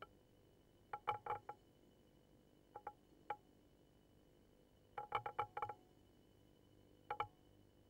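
Light clinks of something hard, possibly metal, in small quick clusters, each clink ringing briefly at the same pitch. The groups come about a second in, near three seconds, around five seconds and near the end.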